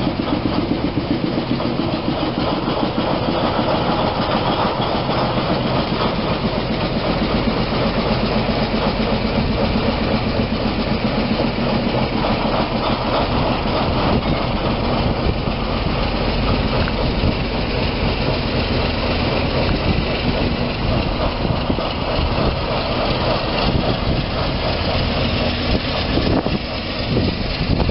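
Diesel shunting locomotive's engine running with a steady, rhythmic throb.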